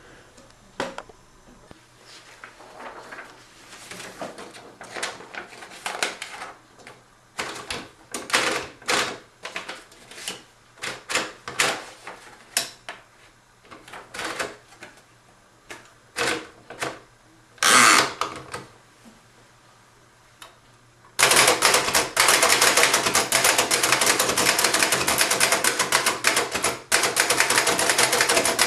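1892 Empire No.1 typewriter: scattered single clicks and knocks for about twenty seconds, with one longer rasp near the middle. It then breaks into rapid, continuous typing for the last seven seconds or so.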